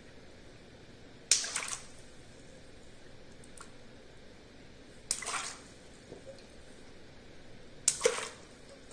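Three small water balloons popped with a pin, about 1.3 s, 5 s and 8 s in: each a sharp snap of the rubber followed by a brief splash and drip of the water.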